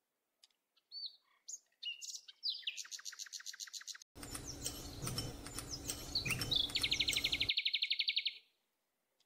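Small songbirds chirping, with a series of repeated notes about three seconds in and a fast, even trill near the end. A steady hiss comes in abruptly about four seconds in and cuts out again.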